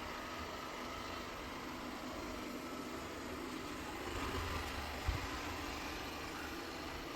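Ecovacs DEEBOT X1 OMNI robot vacuum running with a steady whirring hum, and a single brief low knock about five seconds in.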